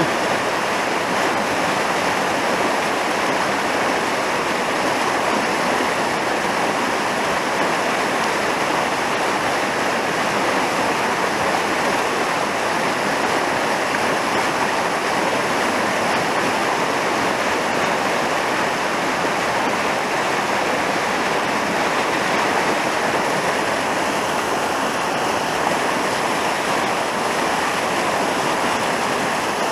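Fast mountain river rushing over rapids: a steady, unbroken wash of whitewater.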